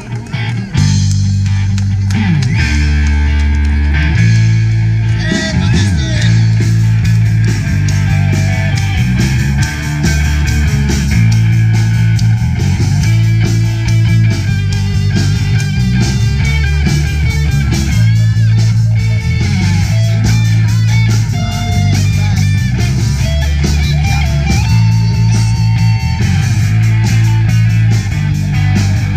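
Live rock band playing loud, with guitar and bass guitar to the fore; the band comes in hard about a second in after a short break.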